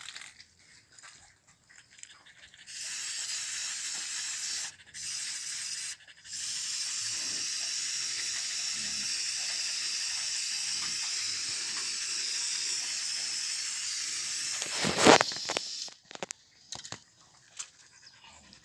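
Aerosol screwworm wound spray hissing steadily onto an infested wound in a cow's chest, in one long spray of about a dozen seconds broken by two brief pauses. A short, loud burst follows as the spraying ends.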